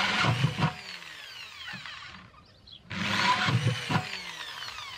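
Corded electric drill with a 3/8-inch bit boring holes through the bottom of a plastic bucket. It runs in two bursts about three seconds apart, and after each the whine falls away as the motor spins down.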